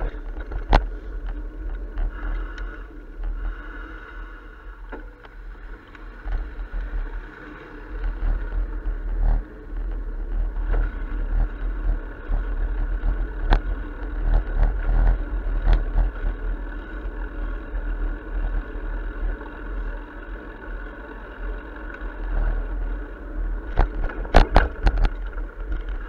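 Wind rumble on a bicycle-mounted camera's microphone while riding, with scattered sharp knocks as the bike jolts over bumps and pavement joints, a cluster of them near the end. Street traffic runs underneath.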